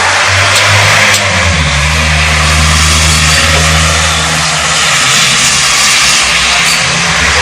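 A vehicle engine running close by with a steady low hum, settling to a slightly lower pitch about a second and a half in, over a wash of street traffic noise.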